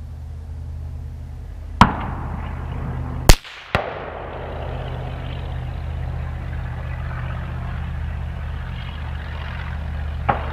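AR-platform rifle shots on a range: two loud cracks about a second and a half apart, a weaker shot just after the second, and another weaker shot near the end, over a steady low hum.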